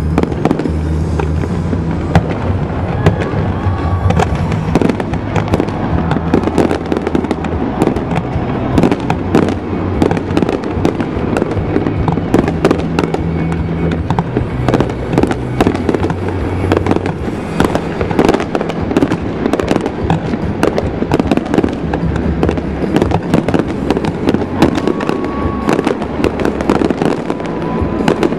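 Fireworks display going off continuously: a dense stream of sharp bangs and crackling from aerial shells and fountains, with no let-up.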